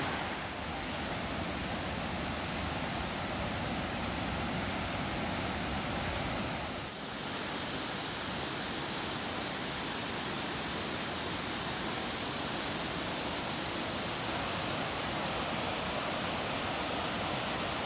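Large waterfall rushing steadily, an even roar of falling water, with a brief dip about seven seconds in.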